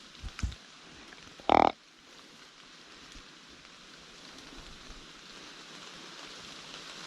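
Steady rain patter in wet woods, with one short, loud pitched call about one and a half seconds in, just after two soft knocks.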